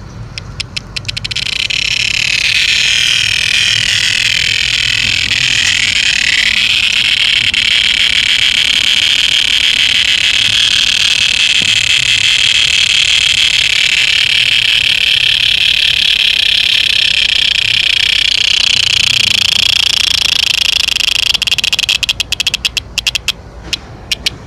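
Cicada calling: a stutter of rapid clicks swells within a couple of seconds into a loud, high, steady buzz. The buzz holds for about twenty seconds, then breaks back into rapid clicking near the end.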